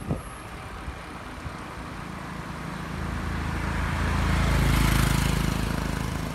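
A car passing close by, its tyre and engine noise swelling to a peak about five seconds in and then fading, over low wind rumble on a moving phone microphone.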